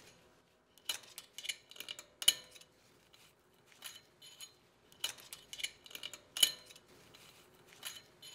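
Light metallic clicks and clinks, irregular and a dozen or so in all, as a steel pick pries a wire snap ring out of its groove in a Ford Bronco's automatic locking hub on the Dana 44 front axle.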